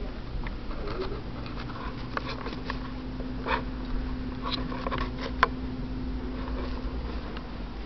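Scattered light taps and clicks, the sharpest about five and a half seconds in, over a steady low hum that stops about seven seconds in.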